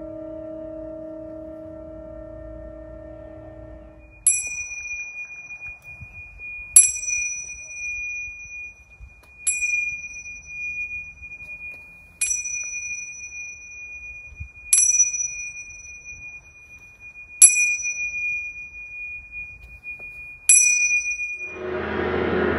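A singing bowl rings on low and stops about four seconds in. Then a small high-pitched bell is struck seven times, about every two and a half seconds, its single ringing tone carrying on between strikes. In the last second a gong starts to swell in.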